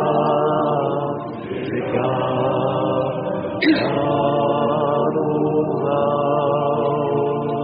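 Choir chanting, several voices holding long sustained notes with slow changes of pitch. A short sharp click sounds about halfway through.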